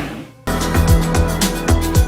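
Background music: one track fades out, and after a short gap about half a second in a new track starts abruptly with a steady beat.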